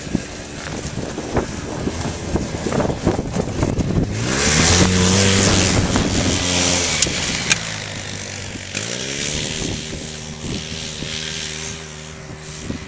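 Off-road vehicle engine revving up about four seconds in, running hard for a few seconds, then easing back to a steadier run, with scattered knocks and clatter throughout.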